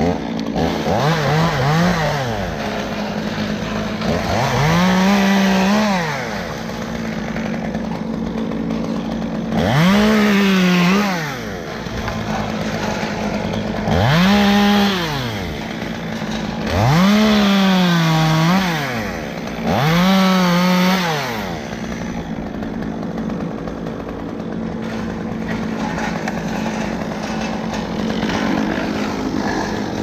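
Stihl top-handle chainsaw running, revved up about six times in short bursts that rise and fall in pitch, idling steadily in between and through the last several seconds. The bursts are the saw cutting off branch stubs.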